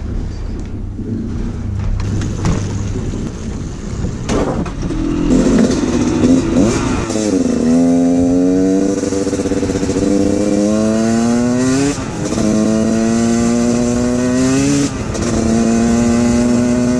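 Dirt bike engine accelerating hard, after a low rumble in the first few seconds. Its pitch climbs steadily in each gear and drops sharply at three gear changes, about seven, twelve and fifteen seconds in.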